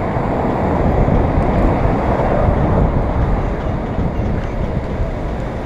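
Steady rumble of wind on the microphone and road noise from a bicycle riding along a city street, with traffic around it; slightly louder in the first half.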